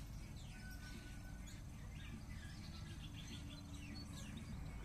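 Small birds chirping and calling over a low, steady outdoor rumble.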